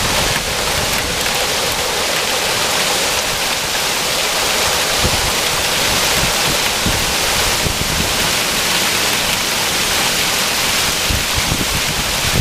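Heavy rain mixed with marble-size hail pouring down, with water gushing from a downspout onto a flooded lawn: a loud, steady hiss.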